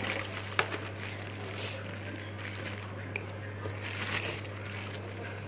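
Plastic bread and snack bags crinkling and rustling as a hand rummages through a packed drawer, with one sharp click about half a second in. A low steady hum runs underneath.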